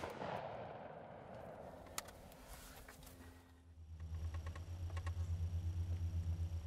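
Echo of a gunshot fired at a turkey, fading away over the first second, with a faint click about two seconds in. After about four seconds a low, quickly pulsing hum takes over and is the loudest sound to the end.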